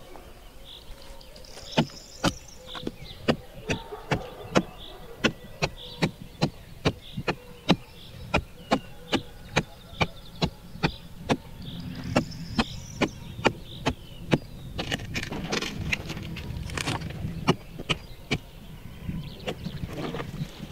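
A steady series of sharp knocks, about two a second, starting about two seconds in and keeping an even rhythm throughout.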